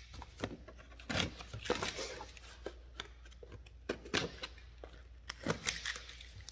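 Packaging being handled and torn open: irregular crinkling and rustling with small clicks and knocks, busiest about a second in and again near the end.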